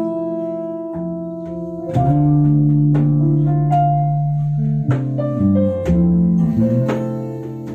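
Instrumental passage from a small live band between sung lines: acoustic guitar chords ringing over electric bass and electric guitar, with the chord changing every second or two.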